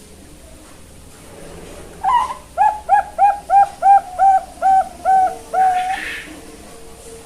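Young Bangkok-strain zebra dove (perkutut) cooing: an opening note about two seconds in, then a quick, even run of about nine short notes, ending on a longer held note.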